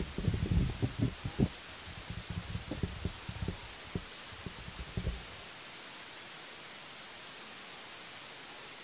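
Irregular low thumps and rumbles on the microphone for about the first five seconds, over a steady hiss that then continues alone.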